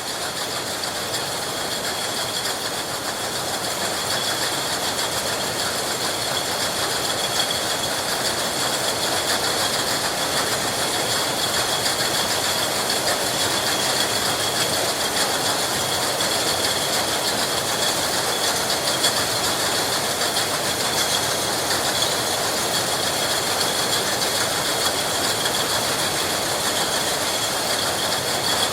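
Milk bottle filling line running: a steady, dense mechanical rattle with a high whine over it, building up over the first few seconds and then holding constant.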